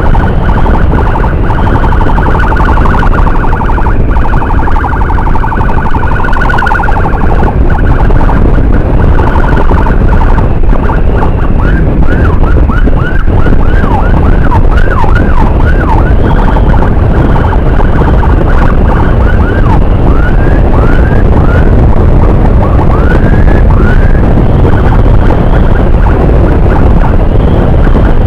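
Electronic emergency siren on an escort motorcycle: a fast warble for several seconds, then after a short break bursts of quick rising-and-falling yelps, twice. Underneath runs a steady heavy rumble of wind and engine from the moving motorcycle.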